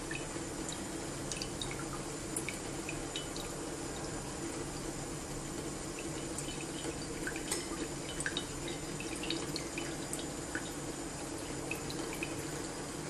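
Distillate dripping from a home still's outlet tube into a glass jug: small, irregular drips, several a second, over a steady low hum.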